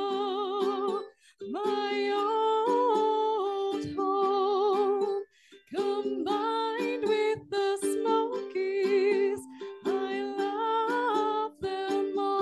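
A woman's voice singing with vibrato over a strummed electric ukulele, the phrases breaking off briefly about a second in and again about five seconds in.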